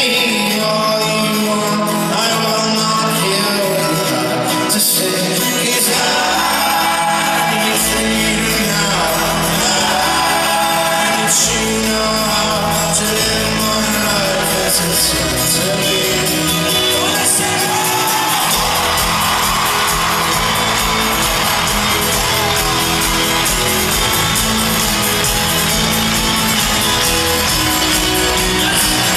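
Live folk-rock band in an arena: acoustic guitar, banjo and upright bass with singing, and the crowd shouting along. The low end fills out about six seconds in, and the full band comes in denser about two-thirds of the way through as the song builds.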